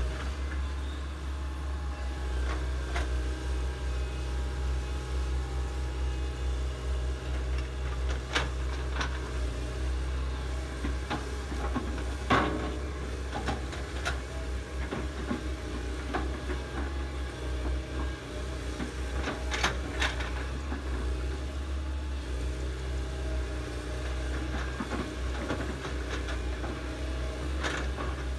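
Komatsu hydraulic excavator's diesel engine running steadily while it digs, with scattered clanks and knocks from the bucket and boom, the sharpest about twelve seconds in.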